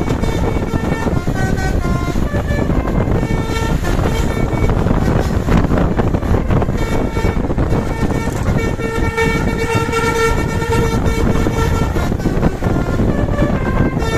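Bus telolet basuri multi-tone air horn playing a melody in short stepped notes, with a longer held chord a little past the middle, over steady loud noise.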